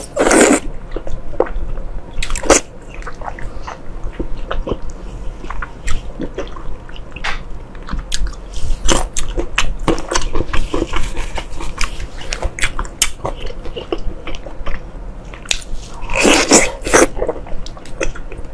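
Close-miked eating sounds of braised pork being bitten and chewed: repeated bites and wet, sticky chewing with many small clicks, thickening into a denser stretch of chewing near the end.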